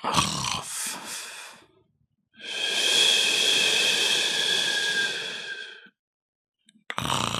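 A person snoring: a short rasping breath, then a long hissing exhale of about three and a half seconds with a thin whistle in it, and the next breath starting near the end.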